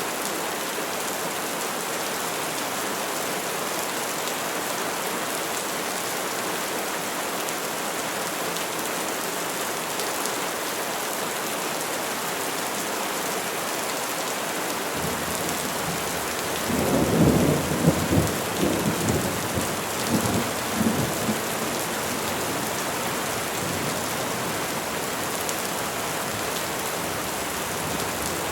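Steady rain falling on trees, with a low rumble of thunder rolling in uneven swells for about five seconds past the middle.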